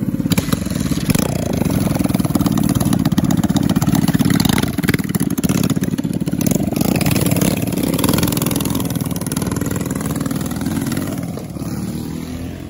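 Small pit bike / mini bike engine running close by, revved up and down. The sound fades near the end.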